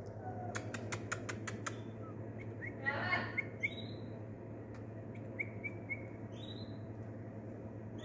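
Caged birds chirping: short chirps that rise to a high note, repeated several times, with a quick run of six sharp clicks about half a second in, over a steady low hum.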